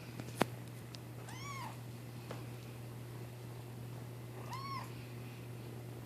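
Kitten meowing twice, two short high calls that rise and fall, about three seconds apart. A sharp click comes just before the first meow.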